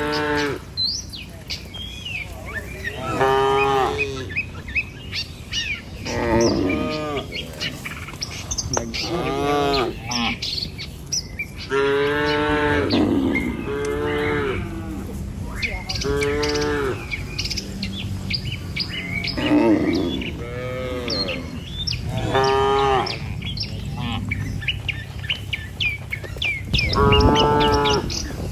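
Cattle in a herd mooing over and over, about ten long calls a few seconds apart, some overlapping, with small birds chirping faintly behind them.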